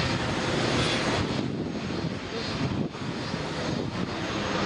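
Steady noise of heavy traffic on a multi-lane highway just below, cars and taxis passing continuously with tyre and engine noise, dipping briefly about three seconds in.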